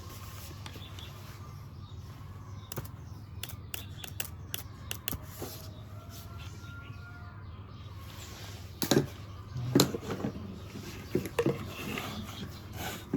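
A run of short, sharp clicks, then several louder knocks in the second half, over a steady low hum.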